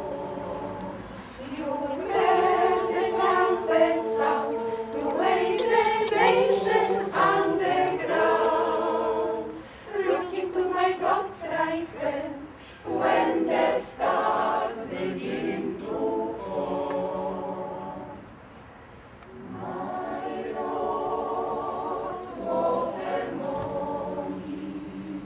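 Amateur choir of older, mostly female voices singing a cappella, with held notes and moving phrases; the singing drops away briefly about three-quarters of the way through, then comes back in.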